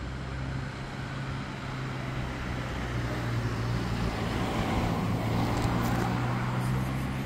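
A motor vehicle's engine running with a steady low hum, as traffic noise swells louder through the second half.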